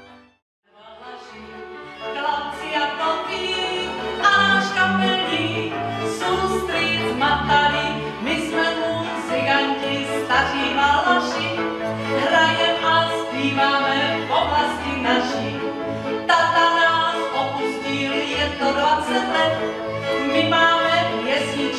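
After a brief silence at the start, a Moravian cimbalom band with fiddles plays a folk song, and a woman sings with it.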